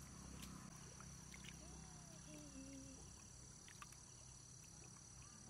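Near silence, with a faint steady high drone of insects.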